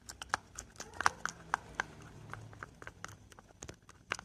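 A stirrer clicking and tapping irregularly against a container, several times a second, as glue and a little water are stirred together, the first step of making slime.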